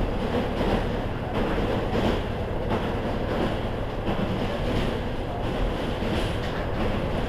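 KiHa 40 series diesel railcar in motion: a steady rushing rumble with a low drone underneath, no distinct rail-joint clicks.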